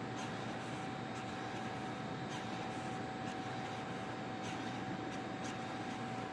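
Hitec HS-5245MG digital servos working a morphing trailing-edge wing model: a steady high-pitched hum over room noise, with a few faint short ticks as the trailing edge moves.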